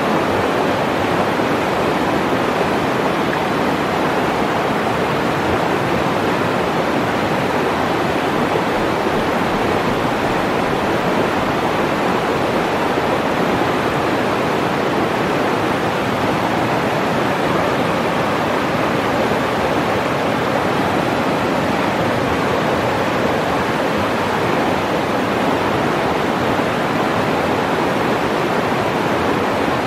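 Shallow, fast mountain river rushing over rocks and boulders in whitewater rapids: a steady, unbroken roar of water.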